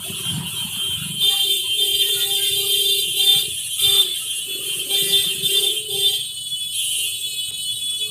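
An alarm rings steadily at a high pitch, while a lower steady tone sounds in long blasts through the middle.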